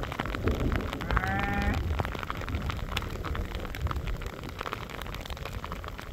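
Hailstones striking in a dense run of sharp ticks during a heavy hailstorm, with a sheep bleating once about a second in.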